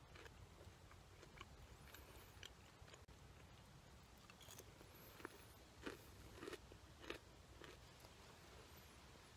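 A person biting and chewing a small piece of food, faint crunches and mouth clicks, with a few louder crunches about six to seven seconds in.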